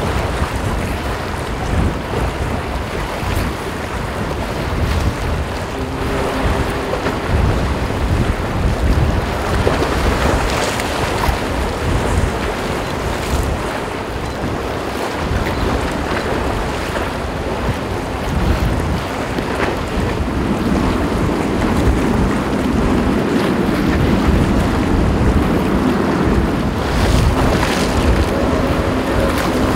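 Strong wind buffeting the microphone over choppy sea waves. From about two-thirds of the way in, the low steady drone of the Superferry ro-ro passenger ferry's engines rises as the ship draws close.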